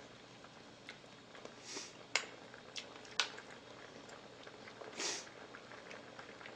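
Shabu-shabu broth simmering quietly in a metal pot on a tabletop burner, with a few sharp clicks of chopsticks against the pot and dishes and two short breathy noises.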